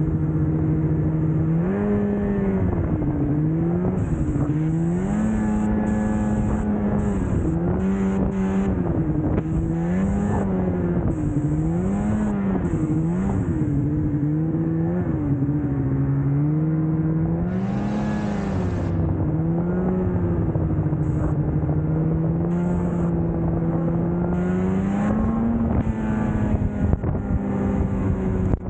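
Snowmobile engine running while under way, its pitch rising and falling again and again as the throttle is eased and opened, over a steady rushing noise from the ride.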